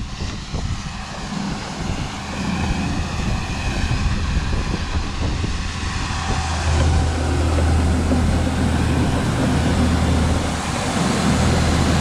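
Farm tractor engine running steadily with a low hum and a mechanical rattle over it, louder about halfway through.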